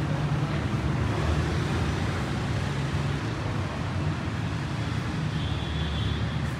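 An engine running steadily, a low, even hum with no change in speed.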